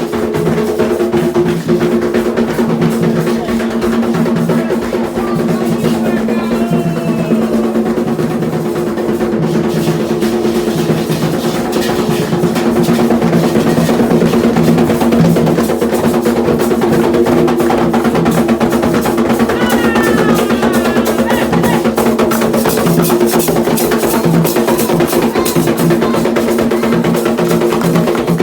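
Candomblé drumming on atabaque hand drums: a fast, dense, continuous rhythm, with steady held tones sounding above the drums.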